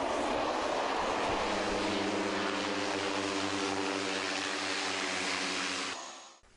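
Small twin-engine turboprop plane running on the ground: a steady rushing engine and propeller noise with a few low steady tones under it, fading out about six seconds in.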